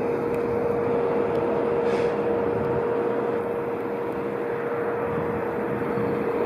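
Steady street-traffic rumble with a fire engine running nearby, and a constant mid-pitched hum throughout.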